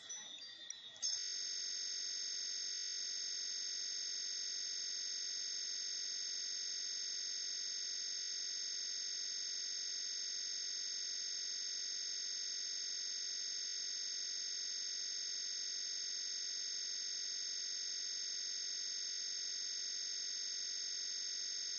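A steady electronic tone made of several fixed pitches sounding together, starting about a second in and holding at one level, with short breaks roughly every five and a half seconds.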